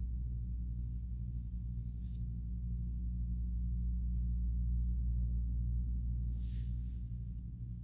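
A steady low hum made of several sustained low tones, gong-like, with a faint soft rustle or click now and then.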